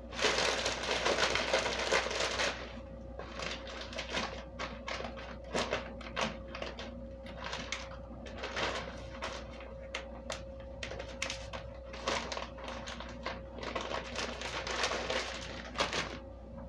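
Kitchen handling noises: a burst of rustling in the first couple of seconds, then scattered light clicks and knocks, over a faint steady hum.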